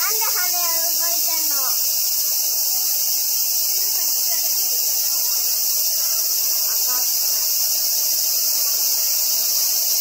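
Loud, steady, high-pitched insect chorus running without a break, with people's voices faintly in the background during the first couple of seconds.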